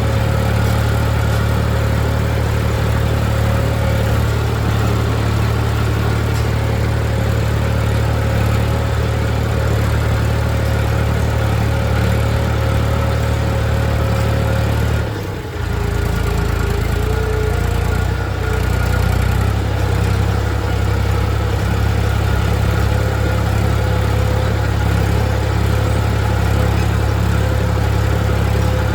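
Tractor engine running steadily while ploughing a field. About halfway through the level dips briefly and the engine note then shifts slightly lower.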